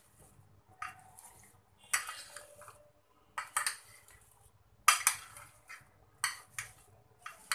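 Two metal spoons scraping and clinking against a glass baking dish while tossing cubed raw fruit. The short, uneven strokes come roughly once or twice a second.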